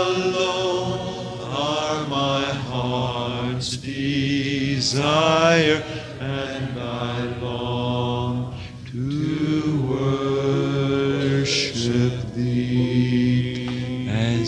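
Church congregation singing unaccompanied: many voices on long held, sliding notes, with short breaks between phrases. It is heard from an old cassette recording.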